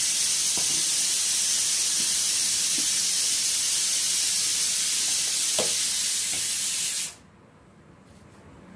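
A loud, steady hiss, strongest in the high register, that cuts off suddenly about seven seconds in, with a few faint taps under it.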